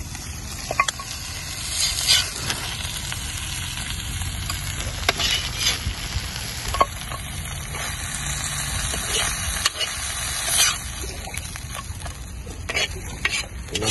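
Food frying and sizzling in a shallow pan over a campfire, with a metal spatula stirring and scraping against the pan in scattered clicks and scrapes.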